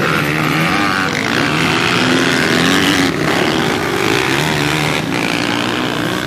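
Several off-road motorcycle and quad engines revving hard, their pitch rising and falling as they accelerate along the track.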